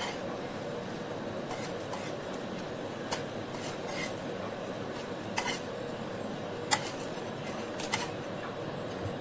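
A metal slotted spatula clinks and scrapes against a frying pan about eight times, lifting out halved boiled eggs frying in oil. Under it is a steady sizzle of hot oil.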